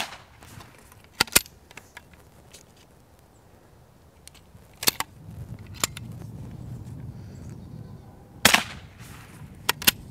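Suppressed .22 single-shot rifle (Keystone Crickett with a Huntertown Guardian 22 Micro can) firing subsonic rounds at soda cans: a sharp shot and can burst at the very start, and another, with a brief smear after it, about eight and a half seconds in. Smaller sharp metallic clicks come between the shots. The suppressed report stays quiet, a little louder than the full-size Guardian can, while the cans popping are louder than the gun.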